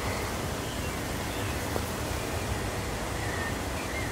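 Steady outdoor background noise with a low rumble, and a faint click a little under two seconds in.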